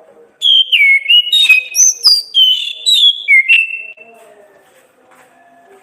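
Orange-headed thrush singing one loud phrase of clear whistled notes that slide up and down, lasting about three and a half seconds and starting about half a second in.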